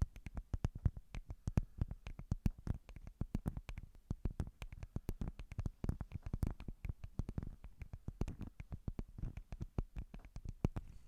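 Rapid, uneven tapping, several taps a second, each a short knock.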